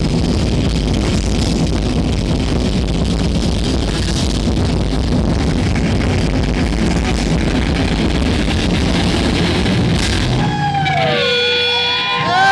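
Thrash metal band playing live: distorted electric guitar, bass guitar and drum kit together. The song stops about ten seconds in, leaving ringing guitar tones, then whoops from the crowd near the end.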